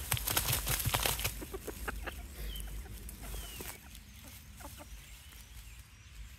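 Tomato pieces landing on dry grass in a quick run of soft thuds, then a flock of hens clucking quietly and pecking at them, with a few short chirps; the sounds thin out toward the end.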